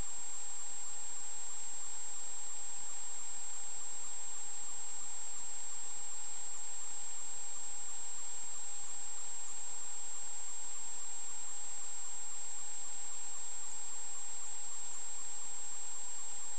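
A steady high-pitched electronic whine over constant hiss, with a fainter, lower steady tone beneath it: electrical noise on a sewer inspection camera's recording.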